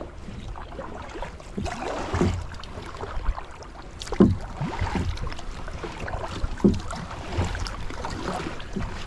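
Kayak being paddled: paddle strokes splashing and sloshing in river water, with irregular knocks and splashes every second or two.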